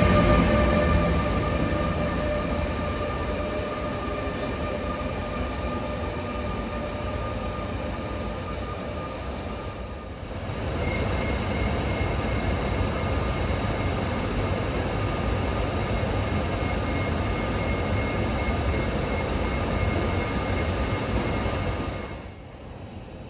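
A double-deck push-pull train pushed by a Taurus electric locomotive rolls in and slows, with steady whining tones over the running noise that fade over the first ten seconds. From about ten seconds in, the Taurus locomotive stands at the platform with a steady electrical hum and a high steady whine.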